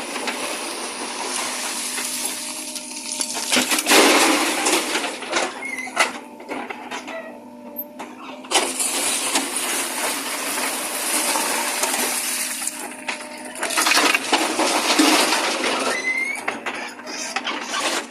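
JCB 3DX backhoe loader loading earth into a tractor trolley: a steady mechanical noise with loud scraping, crashing surges of soil and stones and scattered knocks.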